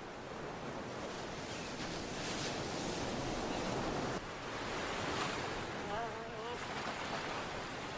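Ocean surf breaking on a shore, a steady rushing wash that swells and falls, with a short wavering cry about six seconds in.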